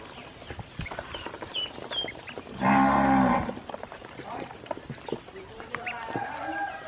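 Ducklings peeping and dabbling in a shallow basin of water, with small splashes and clicks. About two and a half seconds in, a single loud, low, drawn-out call lasting just under a second stands out over them.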